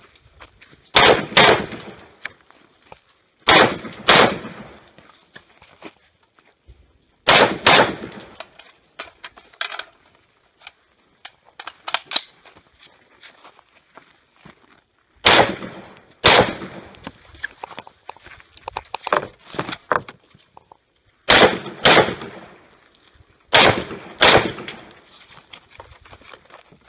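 AR-15 semi-automatic rifle fired in pairs of quick shots (double taps on each target), about six pairs with pauses of a few seconds between them as the shooter moves between targets.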